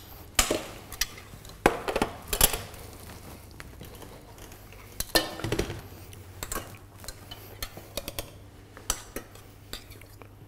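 Scattered clinks and knocks of metal utensils on stainless steel pans and bowls, as butter is spooned into a frying pan and cooked potatoes are pressed through a potato ricer. The knocks are irregular, thickest in the first couple of seconds and again a little past the middle.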